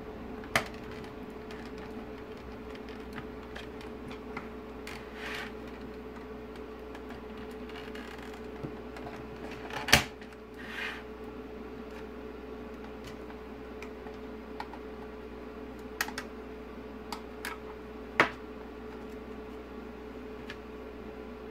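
Plastic catches and trim of a Mercedes Vito W639 instrument cluster clicking and snapping as the LCD display mount is worked loose by hand, in scattered sharp clicks with the loudest about halfway through and softer handling rustles between. A steady low hum runs underneath.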